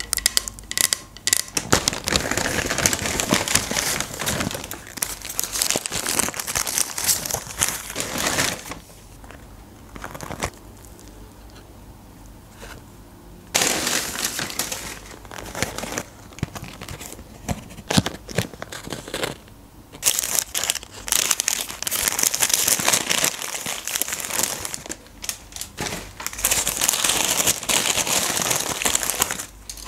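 McDonald's paper burger wrappers crinkling and rustling as burgers are unwrapped by hand, in long stretches with a quieter pause of a few seconds in the first half.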